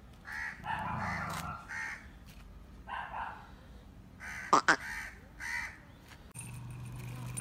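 Crows cawing, a series of short harsh calls about every half second to a second, with one louder, sharper call about four and a half seconds in. A low steady hum starts near the end.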